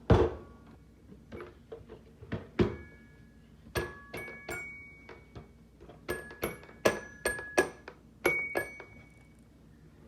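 Stool parts and screws being handled and knocked together during reassembly: a loud knock at the start, then a string of irregular sharp metallic clinks, many with a brief ringing tone.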